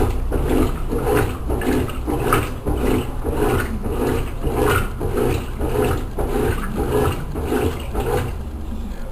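Consul Maré Super 10 kg top-loading washing machine agitating a load in water, the agitator swinging back and forth in an even rhythm of about two strokes a second. The strokes stop about a second before the end, leaving a quieter steady hum.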